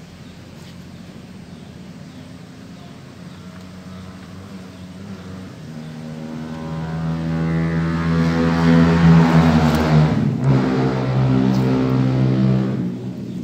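Motor vehicle engine running, growing louder from about six seconds in, with a brief dip about ten seconds in, then easing off near the end.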